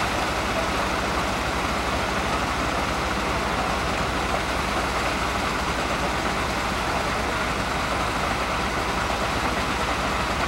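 Fire engine engine idling, a steady hum that does not change.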